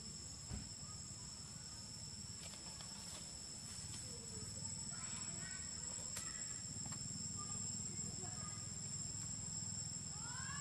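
Insects droning steadily at two even high pitches, over a low steady rumble. A few faint short chirps come and go in the second half, and there is a brief knock about half a second in.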